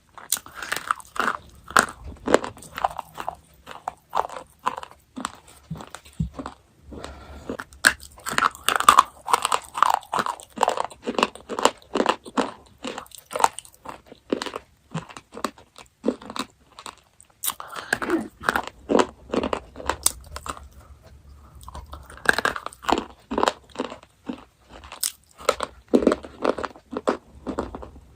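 Chocolate being bitten and chewed close to the microphone: a steady run of crisp crunches and chewing, several a second, broken by a couple of brief pauses.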